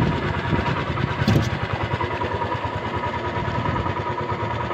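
A small fishing boat's engine running steadily.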